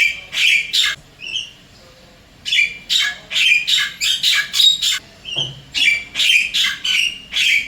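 Javan myna calling in three bouts of rapid, harsh notes, separated by short pauses in which a brief gliding whistle is heard.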